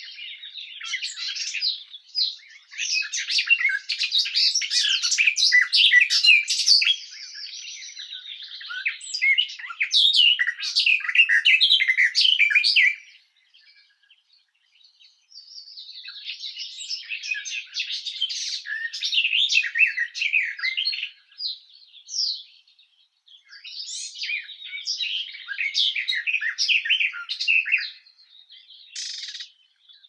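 Garden warbler singing: long runs of rapid, continuous warbling lasting several seconds each, broken by pauses of about two seconds, with a few short notes near the end.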